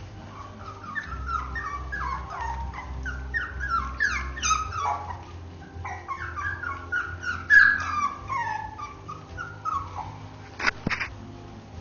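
Three-week-old Basenji puppies whimpering and yipping: a long run of short, high cries, each falling in pitch, loudest a little past the middle. A sharp knock about a second before the end.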